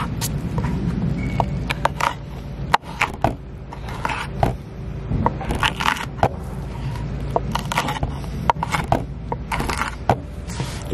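Large chef's knife chopping a yellow bell pepper on a wooden cutting board: irregular knocks of the blade against the board mixed with the crunch of the pepper being cut. A steady low rumble runs underneath.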